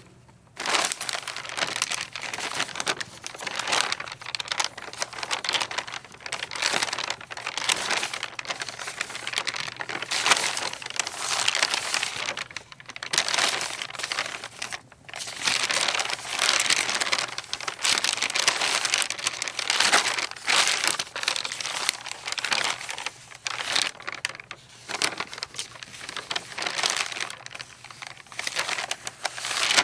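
Loose sheets of paper rustling and crinkling as the wind blows them about, in uneven bursts that swell and fade every second or so.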